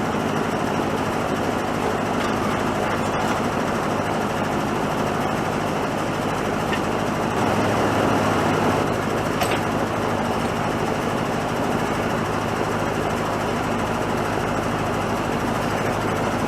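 Loud, steady mechanical running noise with a low hum, unbroken throughout and cut off abruptly near the end.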